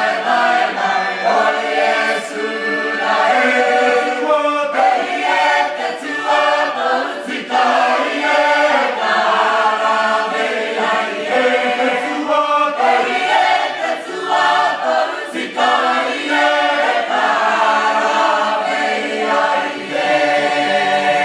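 A mixed group of men and women singing a traditional Cook Islands hymn unaccompanied, in continuous held phrases with short breaks for breath.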